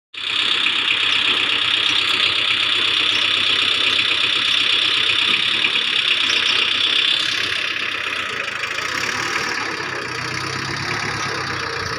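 VST Shakti MT 270 27 hp mini tractor's diesel engine running as the tractor moves off, with a steady high whine over the engine note that eases about seven seconds in.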